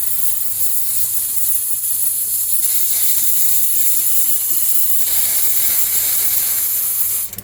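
Fuel injectors spraying fluid on an injector cleaning and testing machine: a steady hiss that cuts off suddenly near the end as the test cycle finishes.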